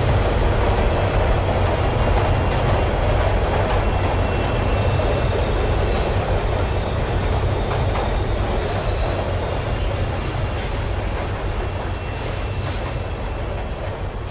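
Train running on rails: a steady low rumble with faint high-pitched wheel squeal, most noticeable in the second half, easing slightly in level toward the end.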